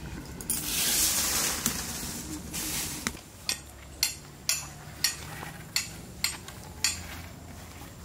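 Duck curry sizzling in a covered metal pan over a wood fire for about the first three seconds. Then it cuts off and a run of about seven sharp clicks follows, roughly two a second.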